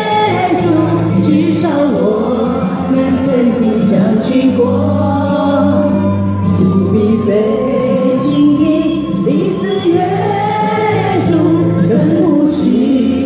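Amateur choir of men and women singing a Taiwanese folk song (minge) together, continuously.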